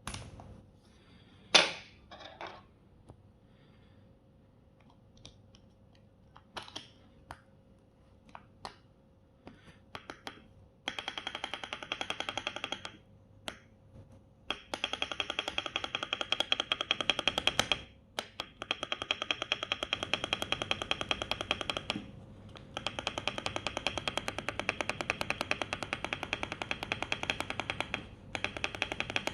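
6.25u spacebar on a mechanical keyboard being pressed: a few scattered single presses for about the first ten seconds, then long runs of rapid presses, many per second, broken by short pauses.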